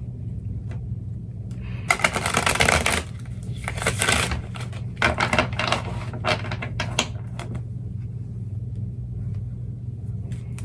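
A deck of tarot cards being shuffled: bursts of rapid flicking clicks, the longest about two seconds in, then a few shorter runs. A steady low hum sits underneath.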